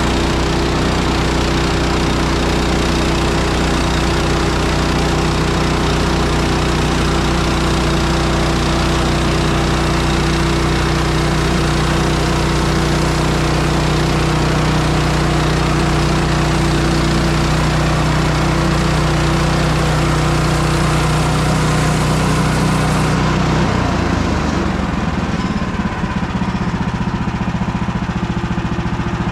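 Woodland Mills HM130 Max bandsaw mill running under load, its gas engine driving a new Ripper 37 blade through a hard maple log with a steady, loud drone. About 24 seconds in, the engine note drops.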